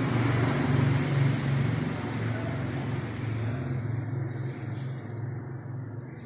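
A motor vehicle's engine running with traffic noise, a steady low hum that gradually grows fainter.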